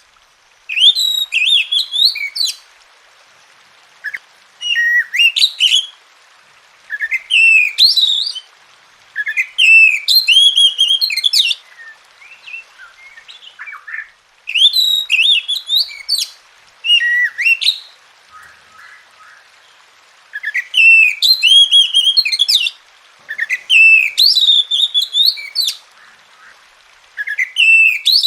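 Oriental magpie-robin (kacer) singing: about eight loud phrases of rapid, varied, whistled and warbling high notes, each lasting one to three seconds, separated by short pauses with a few softer notes between.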